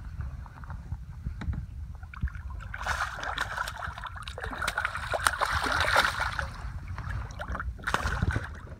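Water sloshing and splashing against a kayak's hull, getting louder from about three seconds in, over a steady low rumble.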